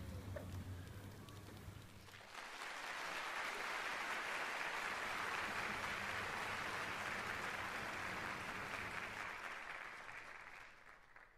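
Low hum with faint ticks from the motor-driven mechanism of a mechanical nativity scene. About two seconds in it gives way to a steady, even rush of noise, much like applause, that fades out near the end.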